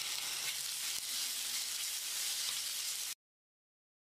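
Sliced onions, curry leaves and ginger-garlic paste sizzling in hot oil in a stainless steel kadai, a steady hiss that cuts off abruptly about three seconds in.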